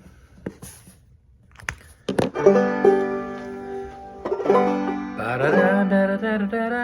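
Five-string banjo in open G tuning played clawhammer style. After a couple of seconds of faint clicks, it comes in with brushed chord strokes and ringing notes, and a few notes slide in pitch about halfway through.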